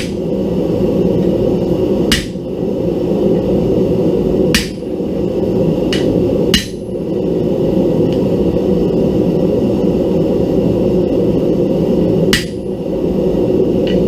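Hammer blows on a steel disc being shaped into a hat: about six single strikes spaced one to six seconds apart, some with a short metallic ring. Under them runs a steady low roar.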